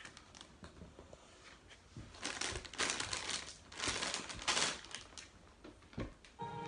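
Crisp packet being rustled and crinkled by hand: faint rustling, then several loud crackling bursts in the middle.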